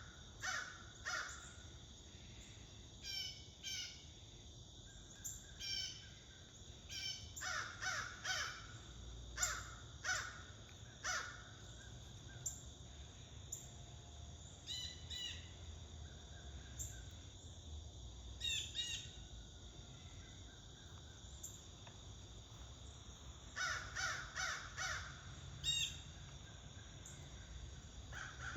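Crows cawing repeatedly in bouts of several calls, the caws coming in clusters with pauses between. This is the agitated cawing of crows that have just chased off a hawk.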